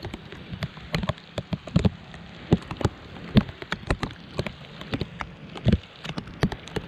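Rain falling steadily on open water: an even hiss, with many irregular sharp taps of individual drops landing close by.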